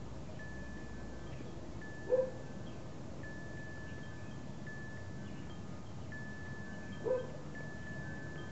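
Three-week-old puppies squeaking twice, each squeak short with a quick rise in pitch, about five seconds apart. Under them runs soft background music of held chime-like notes repeating about every second and a half.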